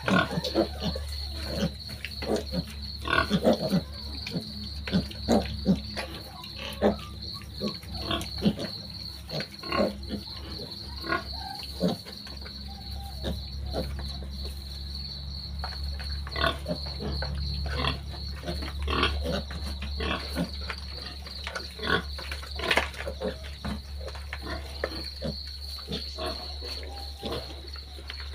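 A litter of piglets grunting and squealing in many short, irregular calls while crowding around the feed, busiest in the first half. A steady high cricket trill runs underneath.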